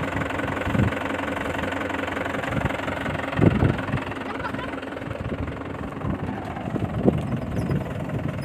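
Tractor engine running steadily close by, with two dull thumps about a third and about five-sixths of the way through.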